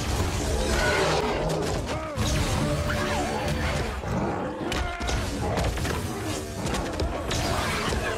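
Movie fight-scene soundtrack: dramatic score mixed with crashing impacts and thuds and a monster's gliding, screeching cries.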